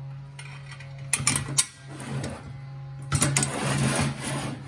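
Steel bandsaw table being handled on a workbench: metal clanks, knocks and scrapes about a second in and again around three to four seconds in, over a steady low background hum.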